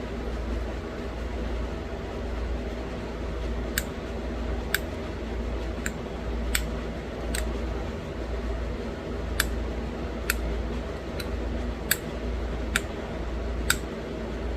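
Pressure flaking a small stone arrowhead: sharp, high clicks as tiny flakes pop off the edge, about one a second and about eleven in all, over a steady low hum.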